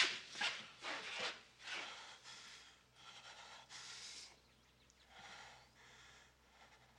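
A man breathing heavily through an open mouth: quick, ragged gasps at first, then slower and fainter breaths.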